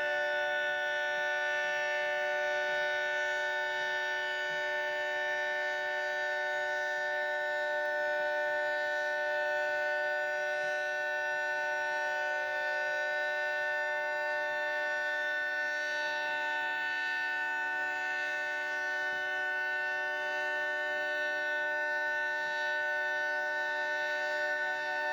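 Federal Signal Thunderbolt 3T22 outdoor warning siren sounding a steady tone, its several-pitched chord held at a constant pitch without winding up or down.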